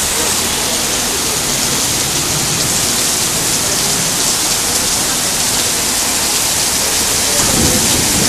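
Torrential rain pouring down: a loud, steady hiss of heavy rain hitting the paved parking lot.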